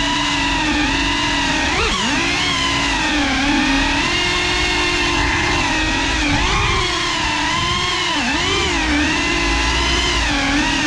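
GEPRC CineLog35 cinewhoop FPV drone's brushless motors and ducted propellers whining, the pitch rising and falling with the throttle. The whine dips sharply and swoops back up about two seconds in and twice more later.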